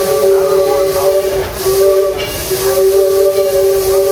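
Steam locomotive whistle on the Disneyland Railroad blowing a steady chord of several notes in long blasts, with a short break about two seconds in, over a hiss of steam.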